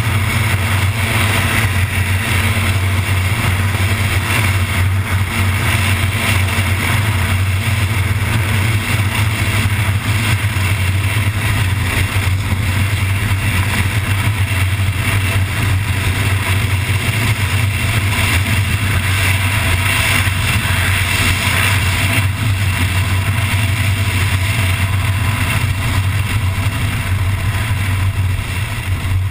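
MTO Sport gyroplane's engine and pusher propeller running steadily at flight power, a constant low drone under heavy wind rush. The wind rush is loud because the camera hangs loose from the tail on its safety strap, out in the slipstream.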